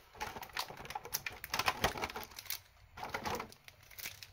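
Cardboard and plastic packaging of a Pokémon card collection box being handled, with irregular light clicks and crinkles as the contents are pulled out.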